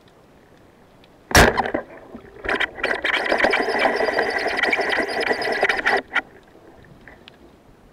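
Wooden double-band speargun fired underwater: one sharp, loud crack as the bands release, about a second and a half in. A few seconds of dense buzzing follow, and they cut off abruptly near the end.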